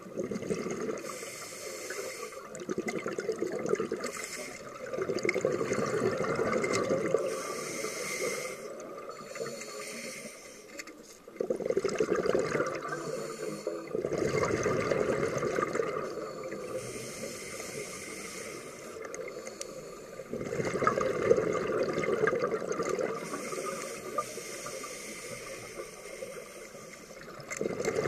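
Scuba breathing through a regulator underwater, picked up inside a camera's waterproof housing: bubbly exhalations lasting a few seconds each, alternating with quieter stretches of inhaling.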